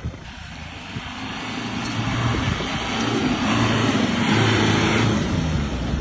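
Force Gurkha's diesel engine running under throttle, with a rushing noise over it. It grows louder from about a second in, is loudest around four to five seconds, then eases off near the end.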